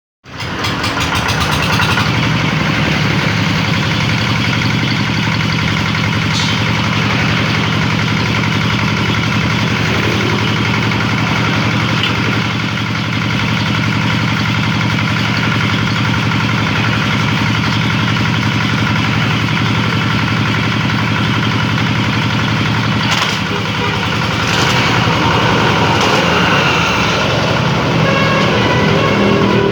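Kubota 8.5 hp single-cylinder diesel engine running steadily, driving a bamboo-splitting machine. A couple of brief sharp cracks come near the end, and the sound grows slightly louder after them.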